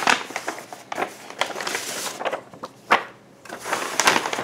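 Crinkling and rustling of craft-kit packaging being handled, with many short clicks and taps; one loud tap about three seconds in.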